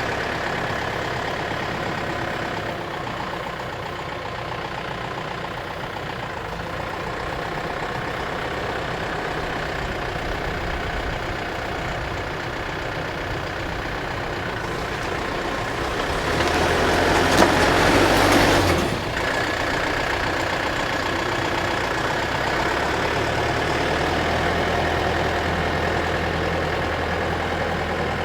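Skid-steer loader engine running steadily while working a stump bucket, with a louder harsh noise for about two seconds a little past the middle as the machine works the stump.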